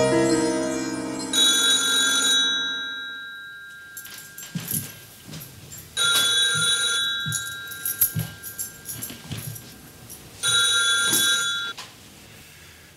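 Telephone bell ringing three times, about a second per ring with a pause of roughly four seconds between rings. Between the rings there are scattered knocks and clatter.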